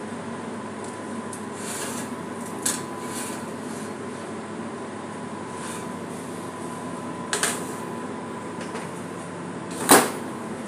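Steady ventilation hum in a commercial kitchen, with light knocks as a metal baking tray of cookies is slid out of the oven, and a sharper metal clank near the end.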